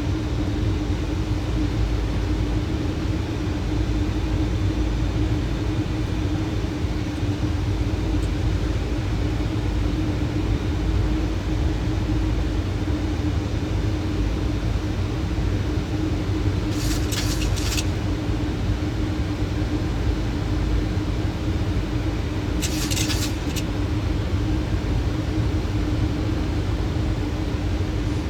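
Steady flight-deck noise of a Boeing 737 on approach with the landing gear down: airflow and engine rumble with a constant hum. Two short hissy crackles come in about 17 seconds in and again about 23 seconds in.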